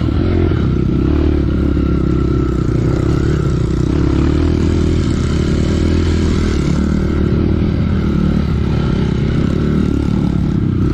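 Trail motorcycle engine running steadily, its sound holding an even level.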